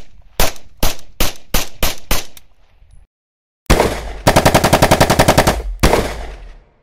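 A PPS-43 submachine gun in 7.62×25mm Tokarev firing about eight sharp, echoing shots, two or three a second, that stop at a sudden cut. After a short silence comes a long, rapid run of automatic gunfire over a heavy low rumble.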